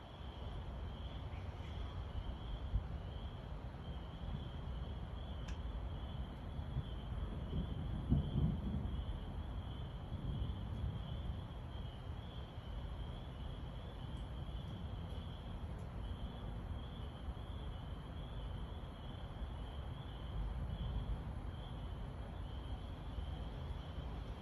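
Thunder rumbling low and continuous, swelling to its loudest about eight seconds in, over a steady, high, pulsing night chorus.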